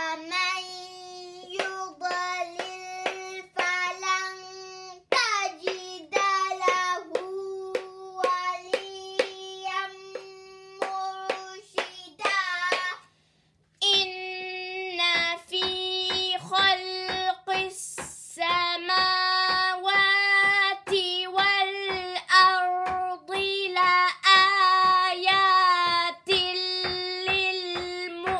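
A child reciting Quranic verses in Arabic, drawing each syllable out into long held notes, while a pointer stick taps the page in step with the syllables, a few sharp taps a second. The reading breaks off briefly about thirteen seconds in.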